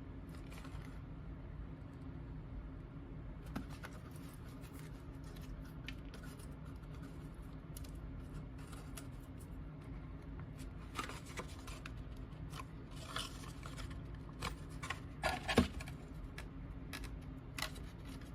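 Paper and board craft pieces being handled and pressed into place while gluing: scattered light taps, clicks and rustles over a steady low hum, busiest in the second half with one louder tap about three-quarters of the way through.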